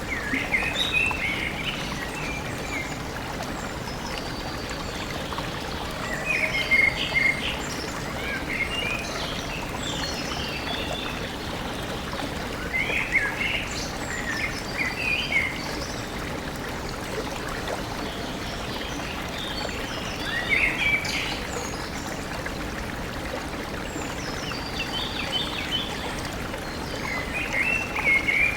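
A stream running steadily, with birds singing short chirping phrases that come back every few seconds over the water.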